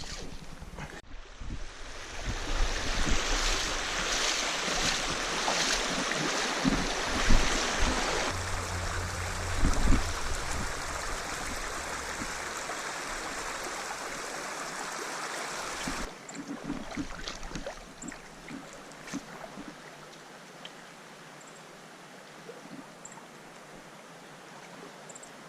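Rushing water of a mountain stream, fairly loud, dropping suddenly to a quieter flow about two-thirds of the way through. A couple of low thumps come in the louder stretch.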